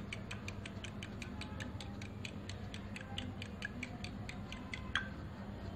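Fork beating eggs in a glass bowl: the metal tines tap the glass in a quick, even rhythm of about five clicks a second, stopping near the end.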